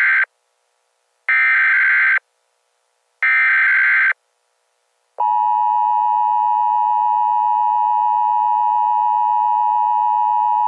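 Emergency Alert System SAME header: harsh digital data bursts about a second long, the tail of one and then two more, each followed by a short gap. About five seconds in, the EAS two-tone attention signal starts and holds steady.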